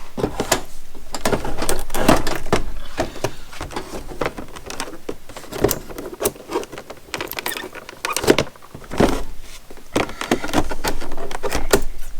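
Cardboard and plastic packaging being handled and opened by hand: irregular clicks, taps and rustles, with a few sharper knocks.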